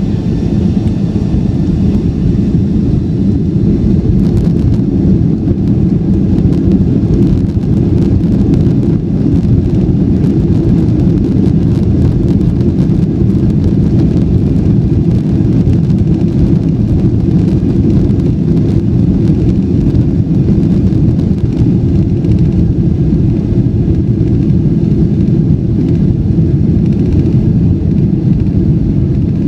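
Cabin noise of a Boeing 757 during its takeoff run: the twin turbofan engines at high thrust, a loud, steady, deep rumble heard through the fuselage, getting a little louder about a second in.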